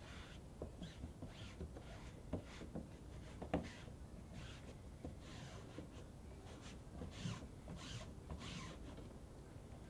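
Thick screen-printing ink being scraped across the mesh of a wooden-framed silkscreen: short swishing strokes, about two a second, with a couple of light knocks against the frame.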